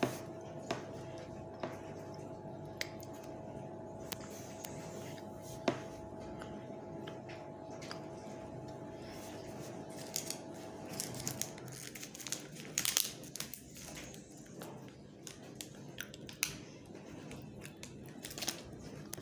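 Chocolate bar wrapper crinkling and rustling in the hands, with scattered clicks and taps that come thicker in the second half. A faint steady hum underneath stops about two-thirds of the way through.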